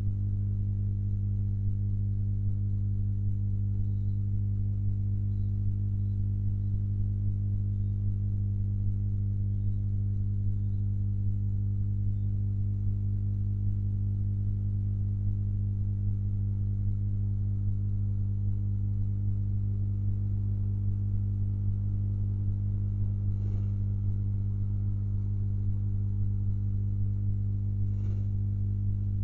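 Steady low electrical mains hum with a ladder of overtones, picked up on the recording. Two faint knocks come near the end.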